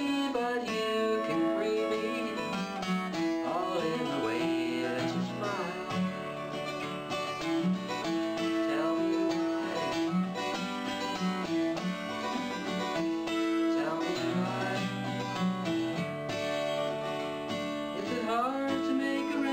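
Acoustic guitar playing a country-style tune, with notes that now and then slide up in pitch.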